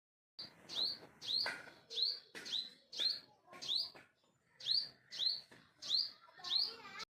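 A bird calling: a string of short, sharply rising chirps, about two a second, with a brief pause about four seconds in. The sound cuts off suddenly near the end.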